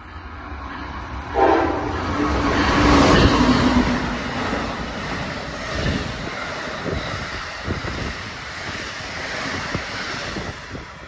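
Passenger train horn sounding one long chord of several notes about a second in, held for about two seconds. The train then rushes past at speed, its wheels clicking over the rail joints.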